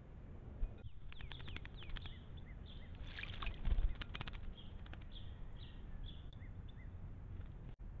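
Hermit thrush bathing in a shallow bird bath, splashing and fluttering its wings, loudest a little past three seconds in. Small birds chirp with short high notes throughout, over a low steady rumble.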